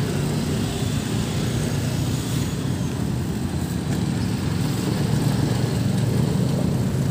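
Road traffic passing the crossing: a steady low engine drone with a hiss of tyres.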